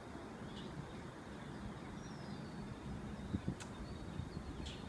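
Outdoor city ambience at dawn: a steady low rumble of breeze and distant traffic, with a few faint high bird chirps and a couple of sharp clicks near the end.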